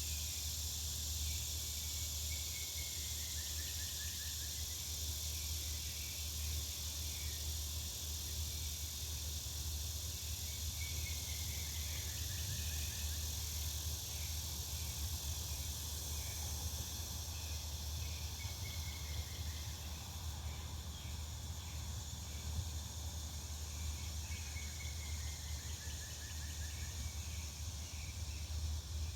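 Back-yard ambience: a steady high insect-like hiss over a low hum, while a bird sings a descending trill four times, each about two seconds long and several seconds apart.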